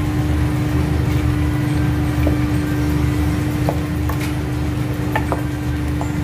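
A steady low hum and rumble, with a few light metallic ticks in the second half as a utensil knocks against a stainless steel pan while spaghetti is tossed in cream sauce.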